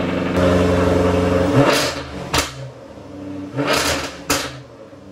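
2016 Jaguar F-Type R's supercharged 5.0-litre V8, just jump-started, running and revved twice. Each time the revs fall, the exhaust gives two loud sharp pops.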